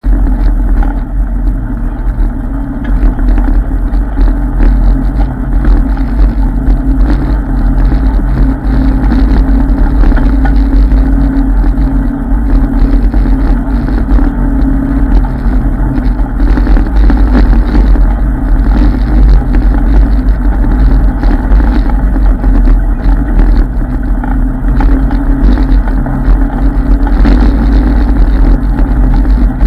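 ATV engine running steadily as it drives along a bumpy dirt trail, with a heavy low rumble and frequent short knocks and rattles.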